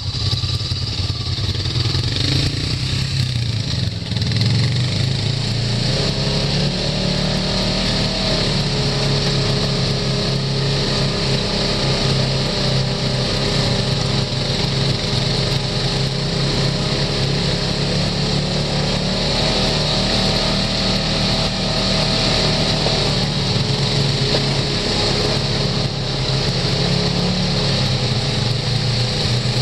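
Side-by-side UTV's engine running steadily while the vehicle drives along a dirt trail, heard from the driver's seat.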